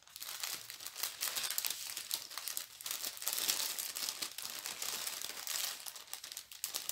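Plastic packaging crinkling and crackling continuously as it is handled and folded.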